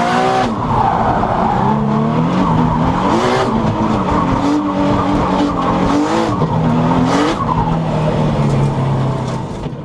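1000 hp Nissan R35 GT-R drift car heard from inside the cabin mid-drift: the engine's revs rise and fall again and again over continuous tyre squeal. The sound fades out near the end.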